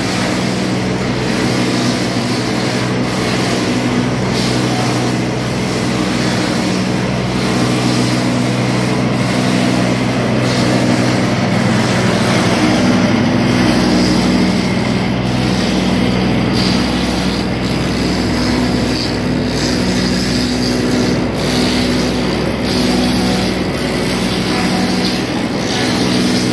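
Spar-rounding machine running, its ring-mounted cutter head circling a glued-laminated wooden mast blank and planing it round. A loud, steady mechanical hum over the continuous hiss of wood being cut.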